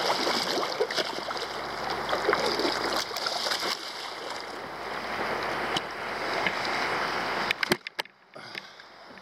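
Water rushing and splashing as a wakeboard skims across a lake, heard close at the water's surface as a steady hiss of spray. Near the end a few sharp knocks come, and the rushing cuts off suddenly.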